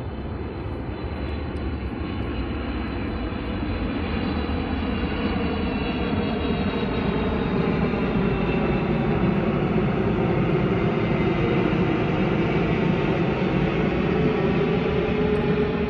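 Jet airliner flying low overhead: a steady rushing rumble of its engines that grows louder over the first half and then holds, with a slow phasing sweep running through it.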